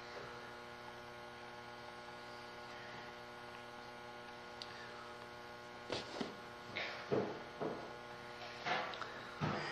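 Steady electrical mains hum. In the second half come several short, soft rubbing noises as fingers press and work a wet clay handle onto a slab-built pitcher.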